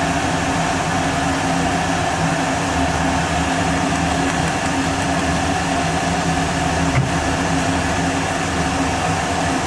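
Steady mechanical hum with an even hiss behind it, unchanging throughout, with one faint tick about seven seconds in.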